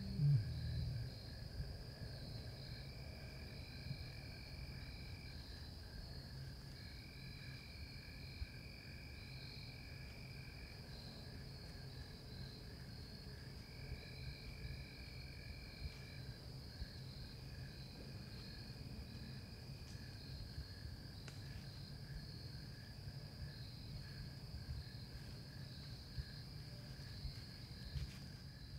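Faint evening chorus of insects: a steady high trill and a lower pulsing one, with another trill coming in and out every few seconds, over a low steady rumble.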